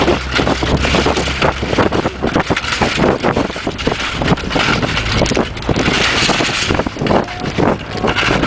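Car driving along a packed-snow road, with its engine running, a steady crunching rumble from the snow underneath and wind buffeting the microphone.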